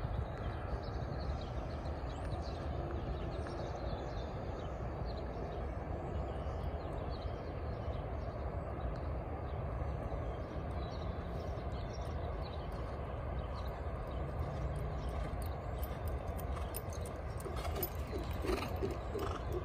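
Racehorse galloping on a dirt track, its hoofbeats fading as it moves away, over a steady low rumble, with birds chirping faintly.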